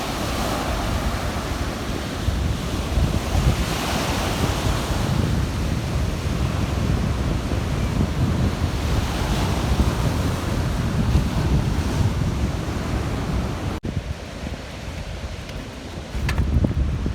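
Black Sea surf breaking on the beach in rough weather, with wind rumbling on the microphone. The sound swells with the larger waves and drops abruptly about three-quarters of the way through.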